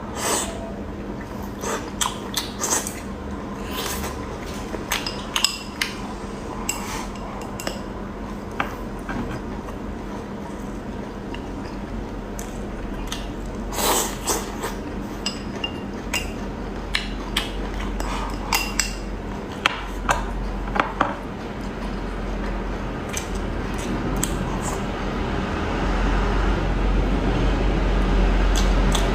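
Eating sounds: utensils clinking against dishes and scattered sharp clicks and crunches, over a steady low hum that grows louder near the end.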